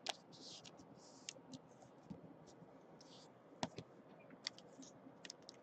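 Faint handling of trading cards: scattered light clicks and short soft rustles as cards are slid and set down.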